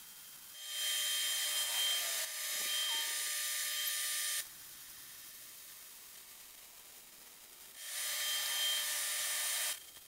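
Wire-feed (MIG) welder arc crackling and hissing as beads are laid on steel square tubing, in two runs: a longer one of about four seconds starting just under a second in, and a shorter one of about two seconds near the end.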